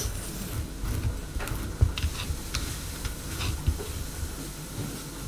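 Scattered light clicks and knocks of kitchen utensils, over a faint steady hiss like food sizzling in a pan.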